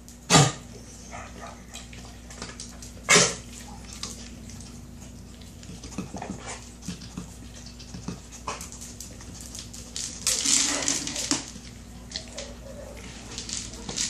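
A dog working a Kong Wobbler food-dispensing toy on a hard floor, nosing and pushing it so the toy clatters and the kibble inside rattles, with sniffing and small clicks. Two loud short sounds stand out, one near the start and one about three seconds in, and a longer rattling stretch comes about ten seconds in.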